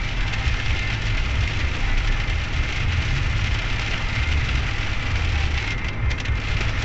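Steady noise inside a moving car in rain: a low rumble of the car on the road under an even hiss of rain on the windshield. The hiss thins briefly near the end.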